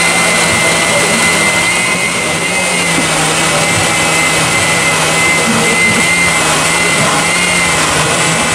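Electric countertop blender running at a steady speed, its motor giving a loud, even whine and hum as it churns a jar of mango drink.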